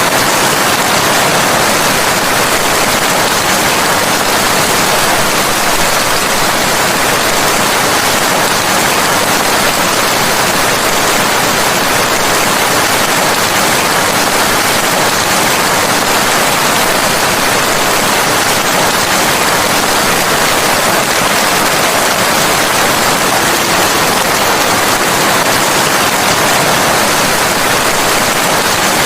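Steady, even rain with a constant hiss and no separate drops or thunder standing out.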